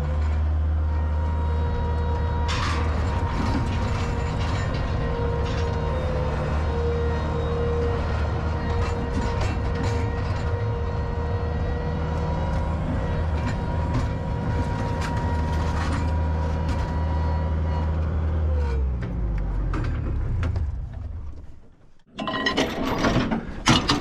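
A motor running steadily with a low hum and a steady whine, then winding down with a falling pitch and stopping a few seconds before the end, followed by a few clinks and knocks.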